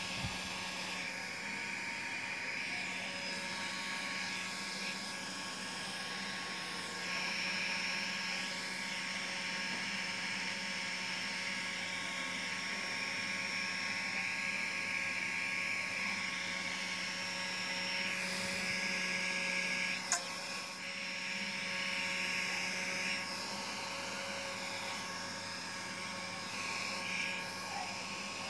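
Small electric motor of a homemade PVC-pipe water jet running steadily, a continuous electric whine whose brighter part swells and dips as the unit is handled. One sharp click about twenty seconds in.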